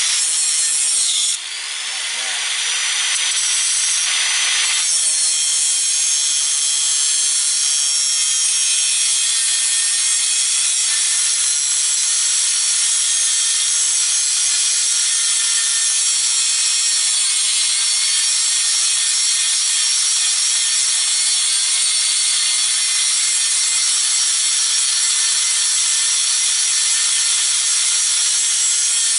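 Power tool's cutting wheel grinding through metal, held lightly so it cuts under its own speed. About a second in it briefly drops off, then whines back up and keeps cutting steadily and loudly.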